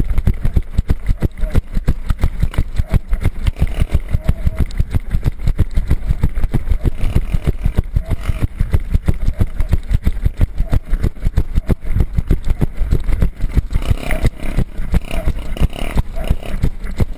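Motorcycle running along a rough dirt track: a loud, rapid, low pounding rumble, busier near the end.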